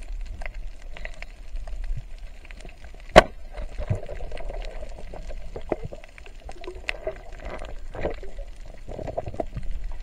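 Underwater ambience picked up by a camera underwater: a low rumble with scattered crackling clicks throughout, and one sharp, loud click about three seconds in.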